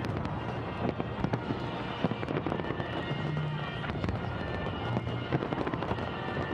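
Fireworks salute: many shell bursts and crackles in quick, irregular succession.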